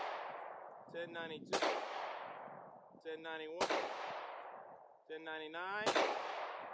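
Three 9 mm pistol shots from a Glock 19, about two seconds apart. Each rings out with a long fading echo.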